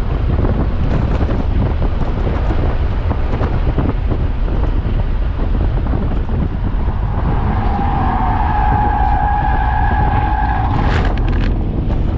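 Audi S5 at track speed heard inside the cabin: steady engine, road and wind noise. From about seven seconds in, a steady high-pitched tyre squeal lasts some three and a half seconds through a corner, followed by a few sharp clicks near the end.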